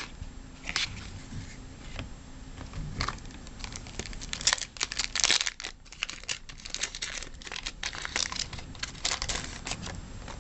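Wrapper of a baseball card pack crinkling and tearing as it is handled and opened: a few scattered rustles, then a dense run of sharp crackles from about four seconds in until near the end.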